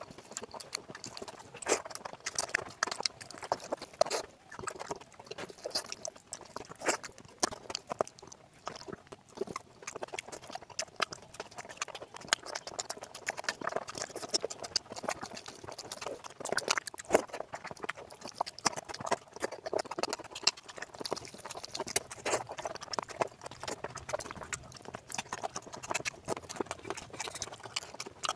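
Close-up eating sounds of rice and curry eaten by hand: irregular wet smacking and chewing clicks, with the squelch of fingers mixing rice into the curry.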